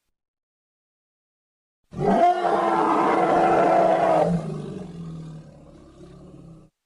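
A loud, drawn-out cry with a steady held pitch starts about two seconds in, lasts about two and a half seconds, then trails off more quietly and cuts off near the end.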